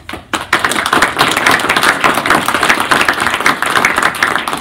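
Audience applauding: many people clapping, starting at once and holding steady.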